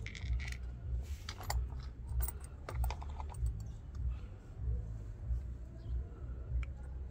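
Light clicks and knocks of plastic washing-machine pump and filter parts being handled, densest in the first few seconds, over a low pulsing rumble.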